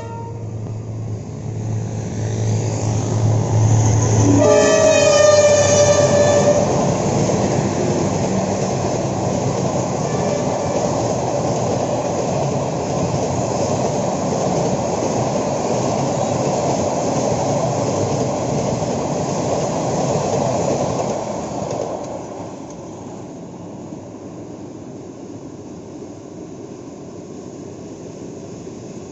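A Vietnamese train, hauled by a diesel locomotive, passes by. The engine drones at first, the horn sounds once for about two seconds about five seconds in, and then the cars rumble past until the sound dies down about 22 seconds in.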